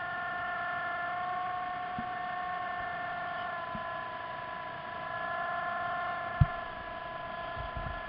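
Steady whine of model submarine electric motors heard through the water, several tones at once that shift slightly in pitch partway through, with a few soft knocks, the loudest about six seconds in.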